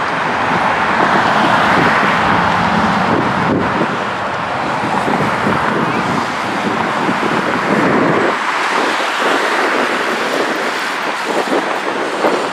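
Search-and-rescue helicopter flying past, a steady loud rush of rotor and engine noise that turns choppier and thinner about eight seconds in.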